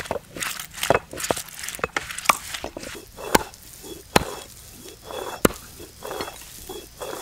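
Heavy cleaver chopping raw turkey meat on a wooden chopping block: a quick run of chops for the first few seconds, then slower single chops, each louder, about a second apart.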